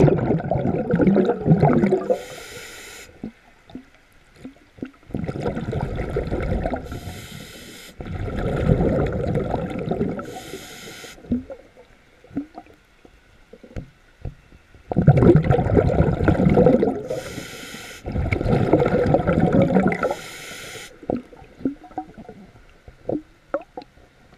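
A diver breathing underwater: loud gurgling bursts of exhaled bubbles, each about two seconds long, alternating with short hisses between them, in a slow repeating breathing rhythm. A few faint clicks near the end.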